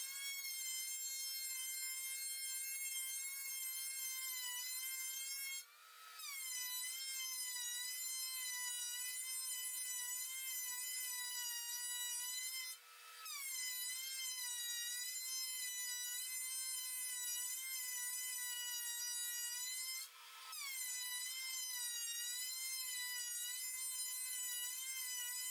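DeWalt benchtop thickness planer running with a board feeding through: a steady high-pitched motor whine that sags in pitch as each stretch begins. It comes in four stretches, each broken off by a short gap.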